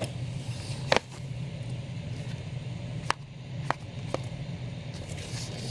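Comic books being handled by hand: a few short, light taps and clicks as issues are picked up and set down, over a steady low hum.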